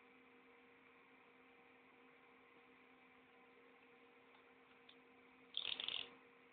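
Near silence with a low steady electrical hum, broken about five and a half seconds in by a brief burst of scratchy crackling.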